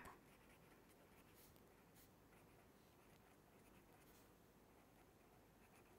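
Near silence, with faint, scattered scratches of a pen writing by hand on paper.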